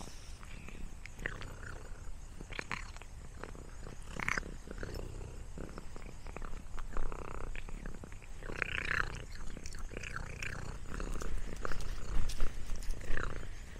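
A cat moving over dry leaf litter: scattered rustles and crackles over a low steady rumble, with a few short, brighter sounds, the strongest about two-thirds of the way through.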